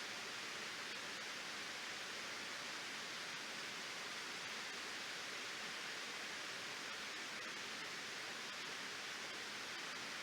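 Waterfall, water pouring over a reservoir spillway in a steady, even rush with no breaks or changes, strongest in the hissing upper range.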